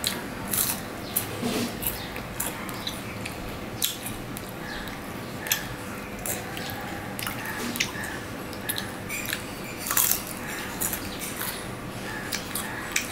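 Close-up eating sounds of a man chewing a piece of jalebi: irregular wet smacks and crunches, several a second, with the loudest cluster about ten seconds in.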